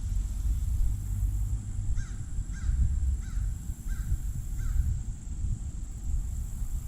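A crow cawing five times in a quick even series, starting about two seconds in, over a steady low rumble.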